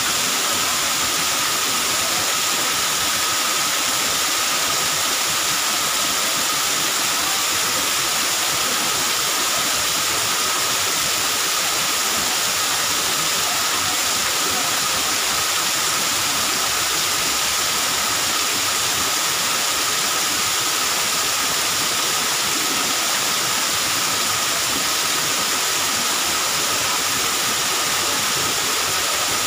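Waterfall pouring down a rock face into a pool: a steady, unbroken rush of falling and splashing water.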